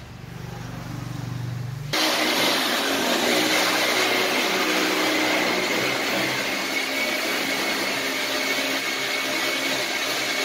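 A low hum, then about two seconds in a steady whirring of an electric motor starts abruptly and keeps going evenly, with a faint high whine in it.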